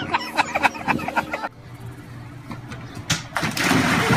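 A rapid run of short sharp sounds for the first second and a half, then water splashing near the end as a child drops into a small plastic kiddie pool.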